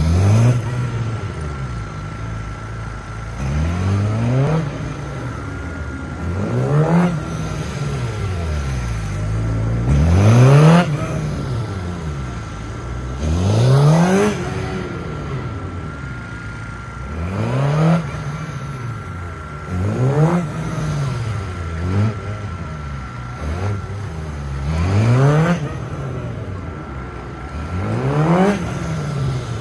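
Suzuki GSX-R 750's inline-four engine revving up and dropping back about every three seconds as the motorcycle accelerates between cones and slows into the turns of a gymkhana course. A thin steady high tone runs underneath.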